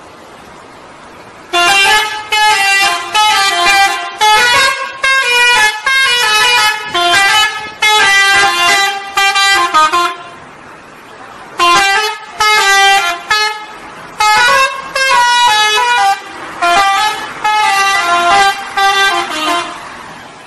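Modified Indonesian bus 'telolet' horn, a multi-trumpet air horn, tooting a jingly tune of short notes that step up and down in pitch. It plays one long run, stops briefly around the middle, then plays a second run until near the end, over a steady hiss.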